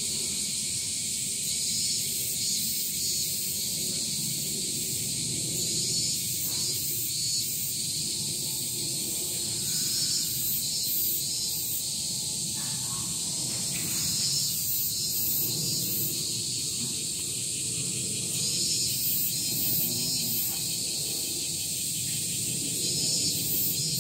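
Insects shrilling: a continuous high buzz with a pulsing rhythm running through it, over a low background rumble.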